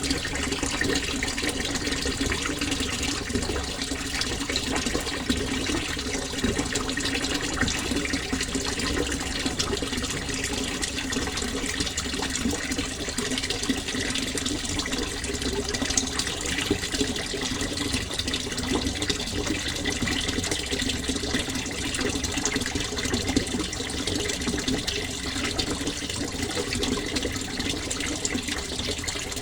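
Flowing water in a natural setting, running with a steady, even rush throughout.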